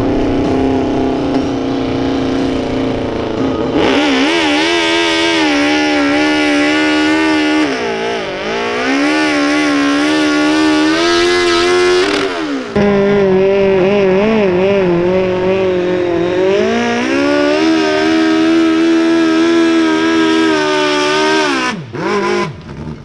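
Modified garden tractor engine running hard at high revs while pulling a weight-transfer sled, its pitch wavering up and down and dipping briefly about eight seconds in. The sound changes abruptly about halfway and drops away near the end.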